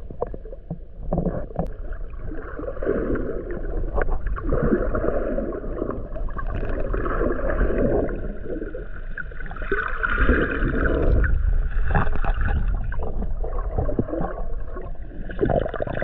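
A boat moving off through shallow water: a steady low rumble with water gurgling and splashing along the hull.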